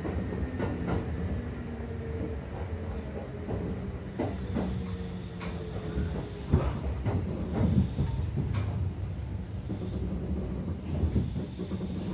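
Kintetsu 2800 series electric railcar standing at a station: a steady hum of onboard equipment with scattered clunks and clicks, the sharpest about six and a half seconds in.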